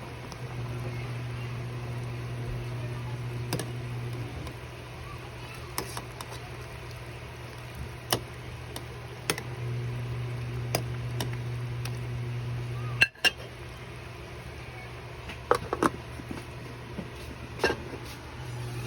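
Cutlery clinking against a plate now and then during eating, a dozen or so separate clinks with a louder knock about thirteen seconds in. Under it a steady low hum drops out and comes back twice.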